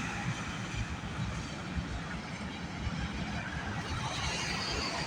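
Freight train of loaded autorack cars rolling past, a steady rumble of steel wheels on the rails.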